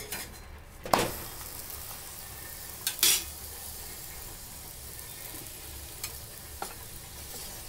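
Ghee-greased paratha sizzling steadily on a hot iron tawa, with a sharp tap about a second in and a louder brief scrape about three seconds in as the paratha is turned over with a spatula. A couple of small ticks follow near the end.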